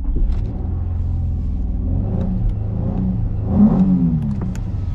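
Car engine running and pulling away, its note rising and easing off about three and a half seconds in.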